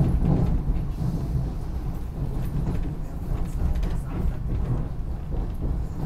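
SEPTA regional rail electric commuter train under way, heard from inside the passenger car: a steady low rumble of wheels on the track.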